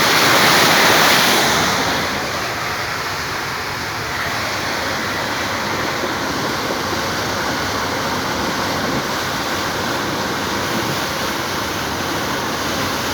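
Floodwater rushing down a mountain road in a strong torrent after heavy rain: a steady, loud rush of water, a little louder for the first couple of seconds.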